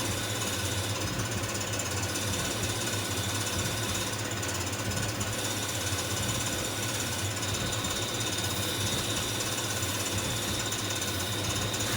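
Haas GT-10 CNC lathe single-point threading a 1-inch, 32-thread pitch on 303 stainless steel, cut dry without coolant. The machine runs with steady noise and a steady high-pitched tone over a low hum.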